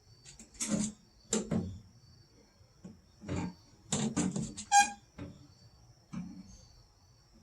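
Irregular knocks and clatters of hand work on a car door during door glass installation, with a short ringing squeak about five seconds in. Crickets chirp steadily behind.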